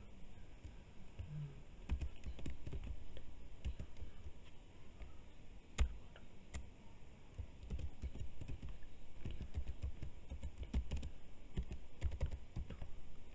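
Typing on a computer keyboard: a run of irregular key clicks, with one sharper click about six seconds in.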